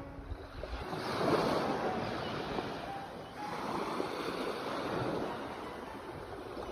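Sea waves breaking and washing in as surf, one swell rising about a second in and another about three and a half seconds in.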